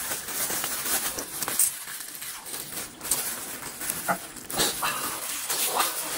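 Close-miked eating sounds: noodles slurped in short, separate pulls, with wet chewing and lip-smacking.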